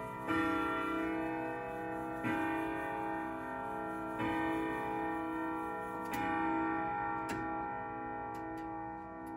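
Pearl grandfather clock striking the hour: slow single strokes about two seconds apart, each ringing on into the next. A few light clicks come near the end.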